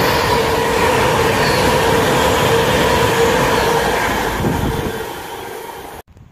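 Avanti West Coast Class 390 Pendolino electric train running past the platform: a loud, steady rumble of wheels on rail with a held whine. It fades over the last couple of seconds and cuts off abruptly near the end.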